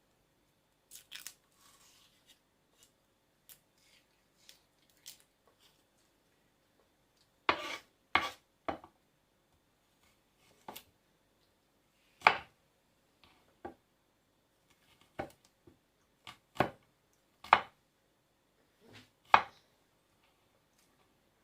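A series of about ten sharp knocks and taps on a hard surface, irregularly spaced a second or two apart, with a few fainter clicks in the first seconds.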